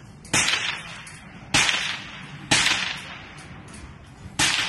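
Four single gunshots at uneven gaps of about one to two seconds, each a sharp crack followed by a short echoing tail.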